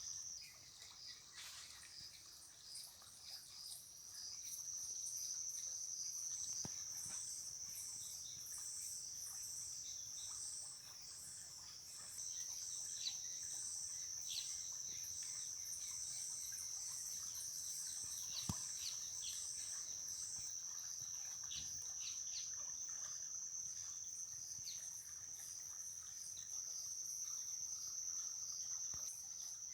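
Evening insect chorus: a steady, high-pitched insect trill, joined for a while by a second insect calling in regular, evenly spaced pulses, with a few short faint calls scattered through.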